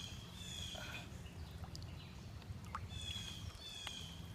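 Birds calling outdoors: short high notes repeated in a few phrases, over a steady low background rumble.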